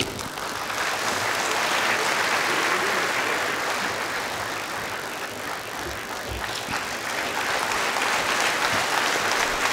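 Audience applauding steadily, easing off a little midway and picking up again toward the end.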